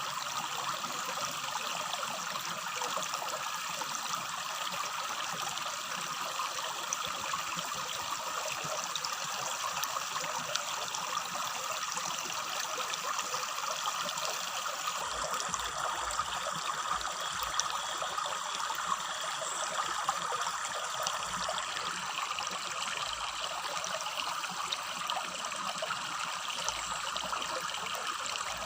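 Shallow river babbling steadily over rocks, a continuous trickling rush of water.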